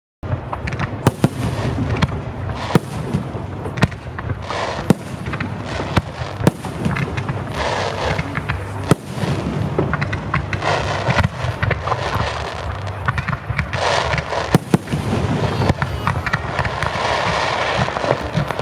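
Aerial fireworks display: many shell bursts going off one after another over a continuous crackle.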